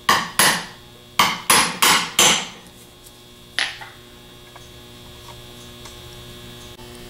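Hammer striking a 15/16-inch deep-well socket used as a driver to seat a shaft seal into a starter's lever housing: six sharp metal taps in two quick groups, then one more ringing metal knock about three and a half seconds in.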